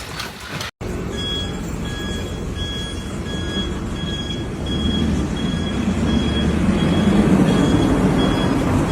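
A continuous low rumbling noise that grows louder in the second half, with a short, high electronic beep repeating about twice a second over it.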